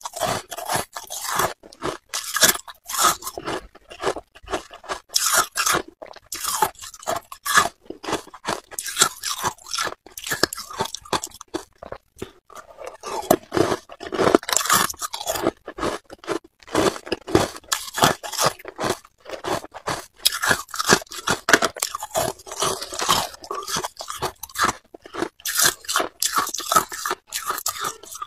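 Hard ice cubes being bitten and chewed, with rapid, irregular crunching and cracking and a brief lull partway through.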